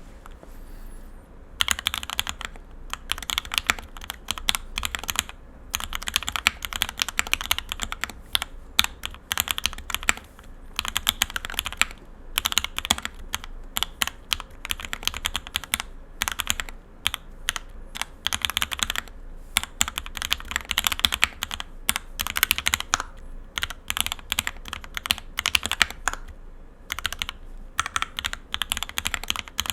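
Bear65 65% mechanical keyboard with JTK keycaps and Op black 80 g switches being typed on steadily, in quick runs of keystrokes broken by short pauses, starting about a second and a half in.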